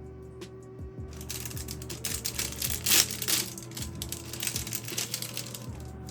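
A dense crackling, crinkling rustle, loudest around the middle, runs from about a second in until near the end, over background music.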